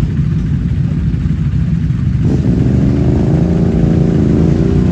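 ATV engine pulling hard as the quad wades through deep water. It gets louder and rises in pitch about two seconds in as the throttle is opened.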